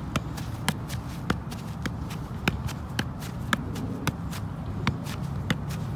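Soccer ball being juggled on the foot, each touch a short knock, about three a second in an even rhythm.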